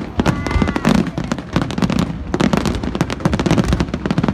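Aerial fireworks display going off: a dense, continuous run of rapid bangs and crackles from bursting shells, with deeper booms mixed in.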